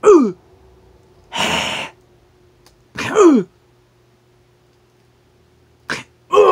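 A man's voice making fight sound effects for toy action figures: three short cries that fall in pitch, about three seconds apart, with a breathy hiss between the first two.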